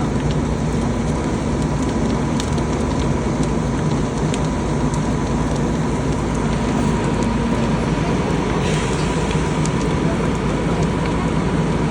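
A house fire burning: a steady rushing noise with scattered crackles and pops of burning wood, over a steady low hum.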